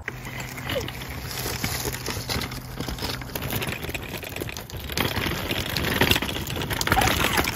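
Folding camping wagon rolling over a rough concrete path, its wheels making a gritty crackling rattle that grows louder about halfway through as it comes closer.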